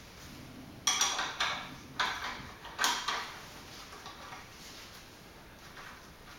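Steel wrench clinking and rattling against a nut and the metal around it on a motorcycle front fork, as the nut is loosened. Clusters of sharp clinks come about a second in, again near two seconds and loudest near three seconds, then fade to faint light ticks.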